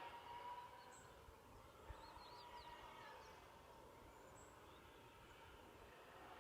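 Faint, distant noise from a pig farm: a steady, siren-like drone held near one pitch that fades slightly, with a few small bird chirps over it.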